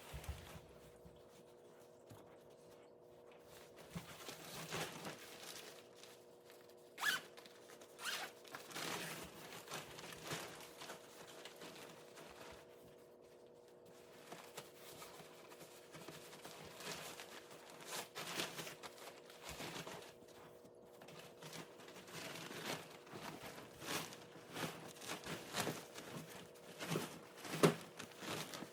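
A dog bed's foam pad being stuffed into its fabric zippered cover: irregular rustling, rubbing and rasping of cloth against foam, with the loudest strokes sharp, like a zipper being worked.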